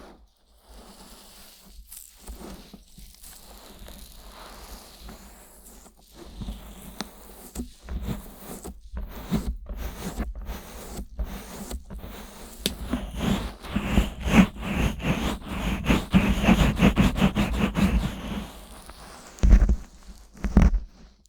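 Fingers rubbing, scratching and pressing on the silicone ears of a 3Dio binaural microphone, heard as close scraping and muffled rubbing strokes. The strokes grow quicker and louder in the middle, and two heavy muffled thumps come near the end.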